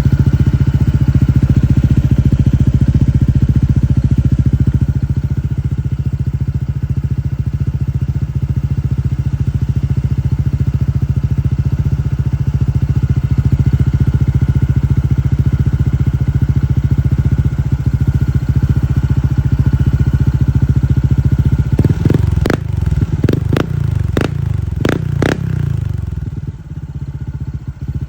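Honda ADV160 scooter's single-cylinder engine idling steadily through an aftermarket Apido exhaust pipe. Near the end the throttle is blipped about six times in quick succession before it settles back to idle.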